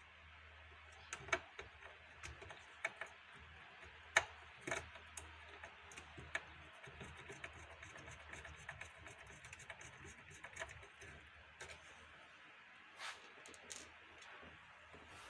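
Screwdriver driving small screws into the plastic bezel of a patient monitor's LCD panel: irregular light clicks and taps of metal and plastic, with the frame being handled.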